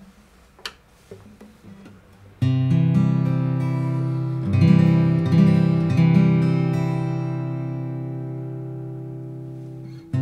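Yamaha L-8 steel-string acoustic guitar: a few light clicks, then a chord strummed about two and a half seconds in. A few more strums follow, and the chord is left to ring and slowly fade out.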